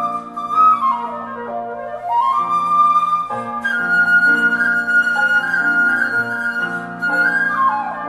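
Concert flute playing a melody with quick downward runs about a second in and again near the end, and long held high notes in between, over grand piano accompaniment.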